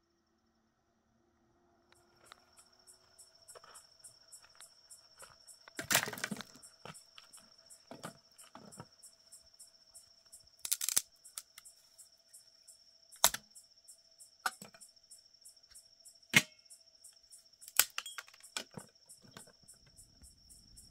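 Crickets chirping in a steady, regular pulse that starts about two seconds in. Over it, about seven sharp cracks and snaps of dry branches being broken for a fire come every second or two, the loudest about six seconds in.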